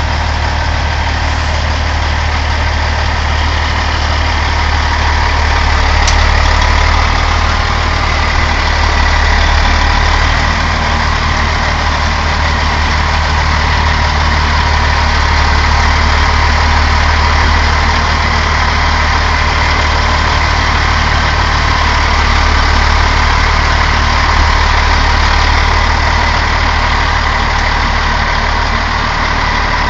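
Diesel engine of a semi tractor idling steadily, a deep, constant hum.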